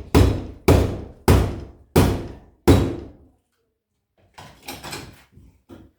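Five heavy blows against a locked door in quick succession, about two every second, each with a short echoing ring; after a pause of about a second, fainter knocks and rattling follow. The door is being struck in an attempt to break it open.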